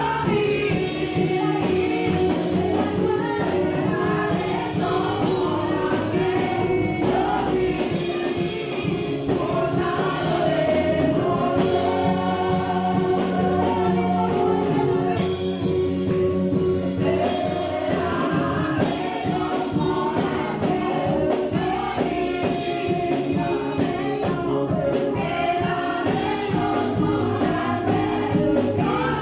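Gospel choir singing with instrumental accompaniment, continuous and steady in level.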